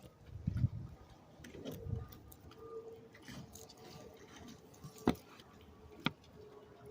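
Hands and a knife working on a redfish while cutting it open to get at the stomach: soft wet handling thuds early on, then two sharp clicks about a second apart near the end.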